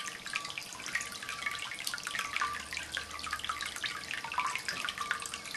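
Water from several ceramic stoneware cat fountains welling up from their spouts and splashing back into the bowls: a steady run of small splashes and drips.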